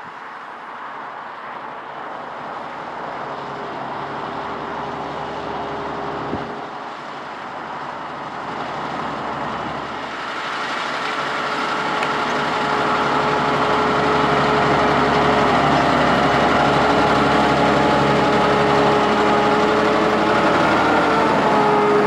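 John Deere 7R 330 tractor's six-cylinder diesel engine working steadily under load, pulling a Kverneland plough through the ground. It grows louder over the first ten seconds or so as the tractor comes closer, then stays loud as it passes close by.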